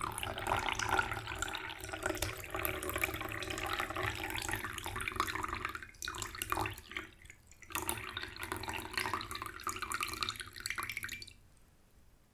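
Tea being poured from a teapot into a cup: a steady trickling splash in two long pours, with a brief break about six seconds in. It stops about a second before the end.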